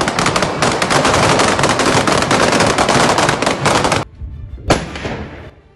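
Rapid automatic rifle fire from several rifles for about four seconds, stopping abruptly. Near the end a single loud rifle shot rings out and echoes away.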